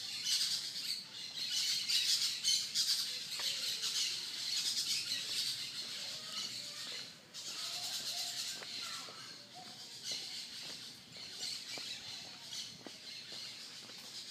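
Birds calling in the garden trees over a dense, high-pitched chatter.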